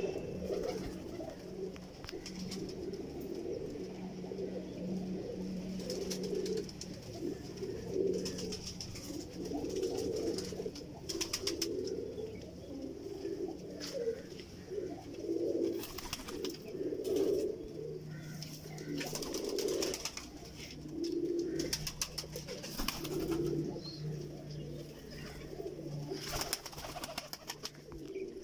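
Sialkoti pigeons cooing: low calls repeat every second or two, with scattered sharp clicks among them.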